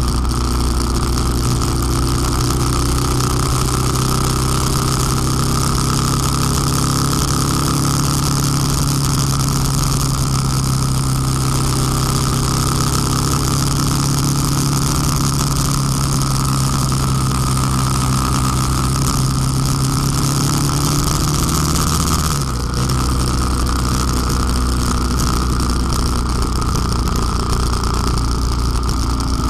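Honda Transalp twin-cylinder motorcycle engine running at a steady cruise under wind and road noise, with a brief dip in the engine note about three-quarters of the way through. A rattling camera mount adds a clicking over it.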